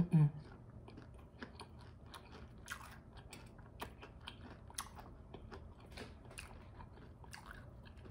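Close-miked chewing of a mouthful of crispy fried chicken: scattered small crunches and wet mouth clicks. There is a short hummed "mm" at the very start.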